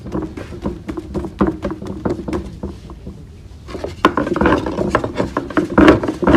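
Thin wooden rolling pin (oklava) rolling and knocking on a floured wooden board as dough is rolled out: an irregular run of wooden clicks and knocks with rubbing, louder from about four seconds in.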